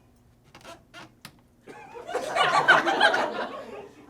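Theatre audience laughing, swelling in about two seconds in and dying away near the end, after a few light knocks.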